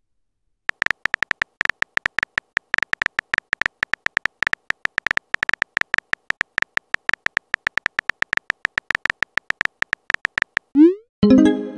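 Rapid phone-keyboard typing clicks, one per typed letter, starting about half a second in. Near the end they stop, and a short rising swoosh and a chiming tone sound as the text message is sent.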